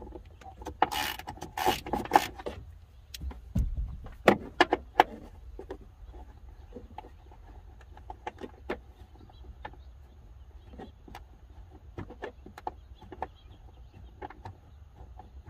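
Ratchet wrench working a tight 13 mm top bolt loose at the Jeep Wrangler's windshield frame: a burst of rapid clicks near the start, then scattered lighter clicks and taps at irregular spacing.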